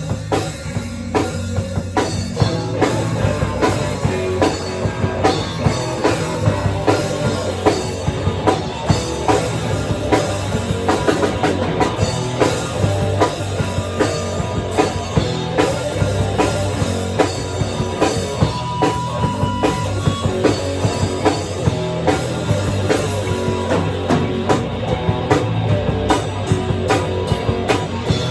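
A rock band playing live, with drum kit and electric guitar, and regular drum hits driving a steady beat.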